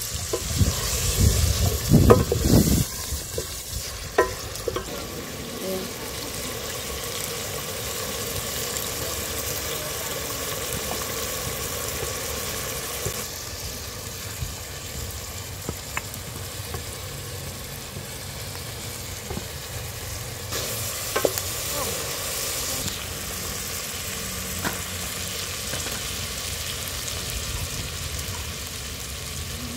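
Vegetables sizzling in a large aluminium pot over a wood fire, with a wooden paddle scraping and knocking against the pot during the first few seconds of stirring. After that the sizzle goes on steadily, with a few faint clicks.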